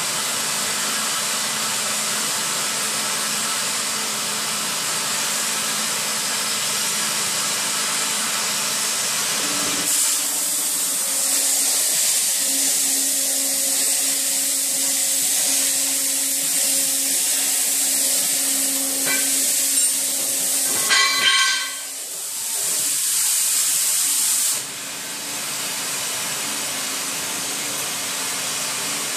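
Oxy-fuel cutting torch on a CNC table: the steady hiss of the preheat flame, then about ten seconds in the cutting oxygen comes on and the hiss grows louder and sharper, with a low hum, as it cuts. A brief high whistle sounds a little after twenty seconds, and a few seconds later the hiss drops back to the quieter preheat flame as the cutting oxygen is shut off.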